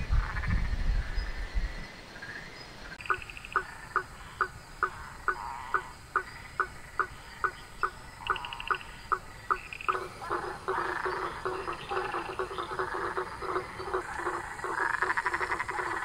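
Frogs calling: one frog repeats a short knocking call about two to three times a second, and about ten seconds in a denser chorus of many frogs joins it. A low rumble fills the first couple of seconds.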